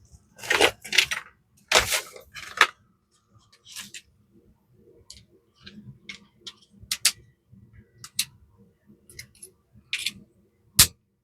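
Hand tools and small metal parts being picked up and set down on a table: a run of separate sharp clicks and knocks, several in the first two seconds and a single sharp knock near the end.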